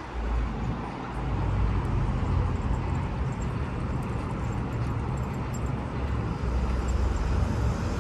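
Steady low rumble of city background noise, louder from about a second in.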